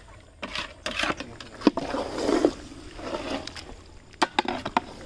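A flat metal spatula stirring and scraping thick mutton curry in a large metal pot: wet squelching scrapes with sharp clinks where the spatula knocks the pot's side.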